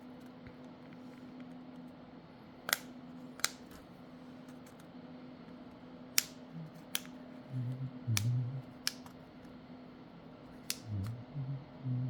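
Sharp, irregular clicks and taps of small repair tools and plastic and metal phone parts being handled during disassembly, over a steady low hum. Dull low bumps join in during the second half.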